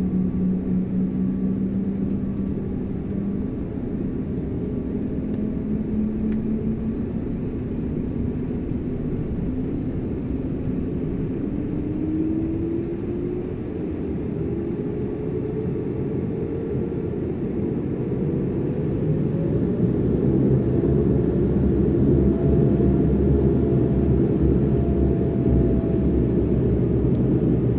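Airliner turboprop engine starting, heard from inside the passenger cabin: a whine rises steadily in pitch as the turbine spools up and the six-bladed propeller begins turning. The engine grows louder about two-thirds of the way through as it comes up to speed.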